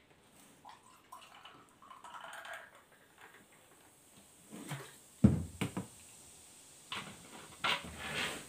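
Soda poured from a plastic bottle into a stemmed glass, a soft fizzing pour for a couple of seconds, followed by several sharp knocks and clunks, the loudest about five seconds in.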